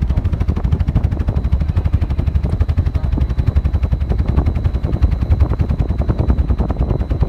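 Large cooling tower fan running, its blades sweeping past close by with a rapid, even train of low whooshing thumps, one per blade pass, heavy on the low end. A faint, steady high whine runs underneath.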